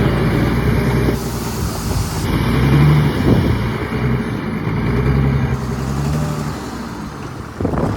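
Heavy diesel engine of earthmoving machinery running under load, its pitch rising and falling twice, with two stretches of rushing hiss.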